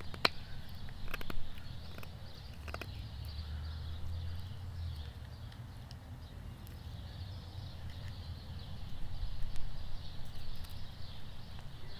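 Cold Steel Finn Hawk fixed-blade knife carving a notch into hard dead wood: scattered sharp cuts and knocks of the blade biting into the wood, over a steady low rumble.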